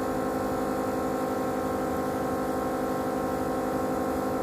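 Steady electrical hum with many evenly spaced overtones, unchanging throughout.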